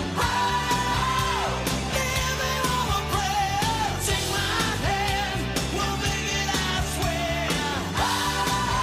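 A pop-rock song with a strong, steady beat and a lead singer holding long notes.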